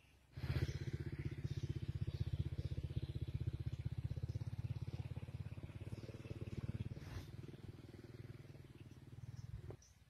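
An engine running with a fast, even low pulse. It starts abruptly just after the start and cuts off shortly before the end.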